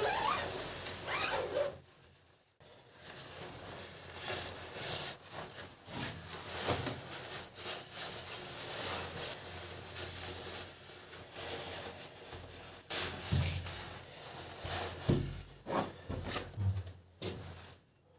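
Irregular rubbing and scraping with scattered soft knocks and a few low thumps, stopping and starting throughout.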